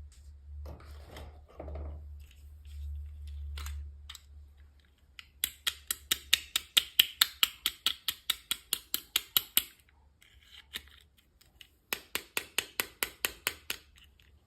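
Rapid, even clicking at about eight clicks a second, in two runs of a few seconds each with a pause between, after some soft handling rustle.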